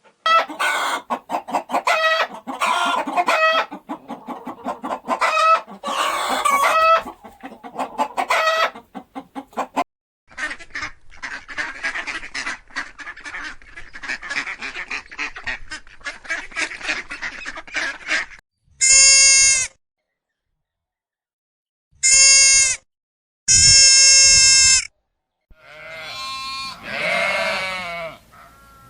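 Chickens clucking and calling in a run of pulsing, pitched calls, then a stretch of rapid, rattly clucking. Three short, loud, steady calls follow with silences between them, and a wavering call comes near the end.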